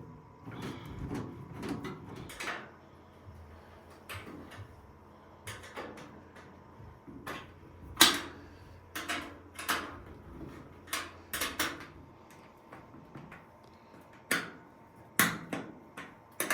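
Irregular knocks and clunks from handling a clothes dryer being worked on, loudest about eight seconds in, with quicker runs of knocks later.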